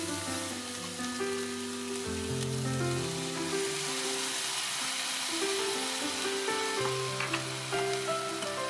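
Diced vegetables sizzling in oil in a frying pan, the hiss growing louder about three and a half seconds in as half a cup of water goes into the hot pan. Soft background music plays with held notes.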